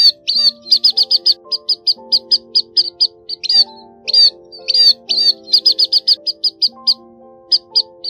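Scaly-breasted munia calls: short high notes repeated again and again, often in quick runs of about five a second with brief gaps between runs. Background music with slow held notes plays underneath.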